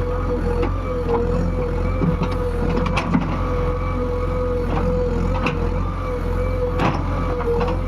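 JCB 145 excavator's diesel engine running steadily under load, with a steady high hydraulic whine and scattered knocks and clatters as it works.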